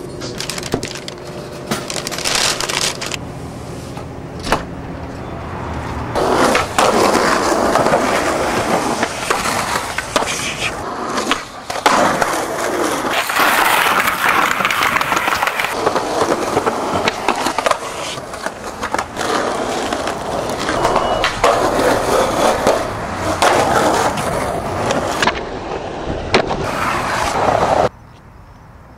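Skateboard wheels rolling over a concrete sidewalk: a steady rough rolling noise with a few sharp clicks. It sets in after a quieter stretch about six seconds in and cuts off suddenly near the end.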